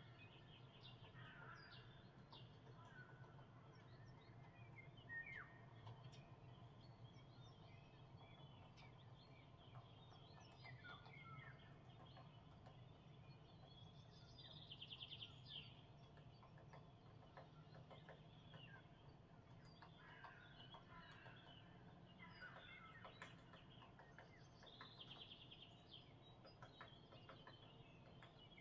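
Faint songbirds calling in the trees: scattered short chirps and whistles, with a quick rattling trill about halfway through and again near the end, over a steady low hum.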